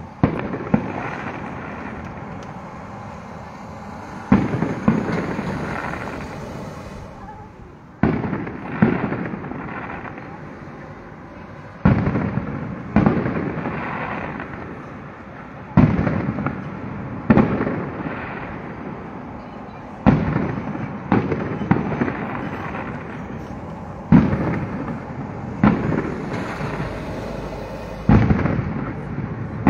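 Aerial firework shells bursting in a fireworks display. Each burst is a sharp bang followed by a long echo that dies away over a few seconds. The bangs come about every four seconds, sometimes two close together.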